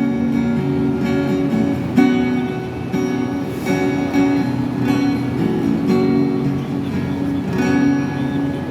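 Acoustic guitar strumming chords, a fresh stroke about once a second, as the instrumental close of a song after the singing has ended.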